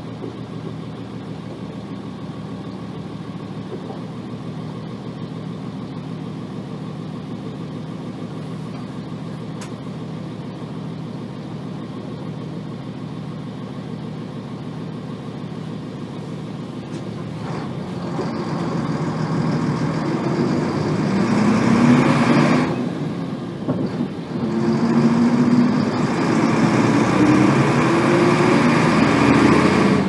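Nissan Diesel P-RM81G bus's FE6 six-cylinder diesel engine, heard from inside the cabin. It runs steadily at first, then from about 17 s in it revs up as the bus accelerates. Around 23 s in the revs drop sharply at a gear change, and the engine climbs again, running loud and high-revving, as this bus is known to do.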